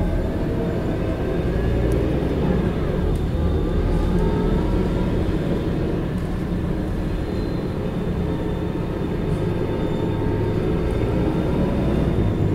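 Scania K94IB coach's engine and ZF automatic gearbox running steadily under way, heard from inside the passenger cabin, with a faint gearbox whine that rises in pitch a few seconds in.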